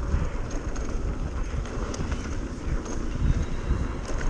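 Mountain bike rolling fast down a dirt trail: wind buffets the microphone and the tyres rumble over the ground, with scattered small knocks and rattles.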